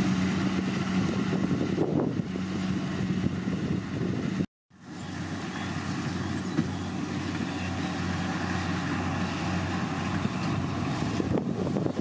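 Kubota DC70 Plus rice combine harvester's diesel engine and machinery running steadily under load, a low even hum with a rushing noise over it. The sound cuts out for a moment a little before halfway, then resumes somewhat quieter.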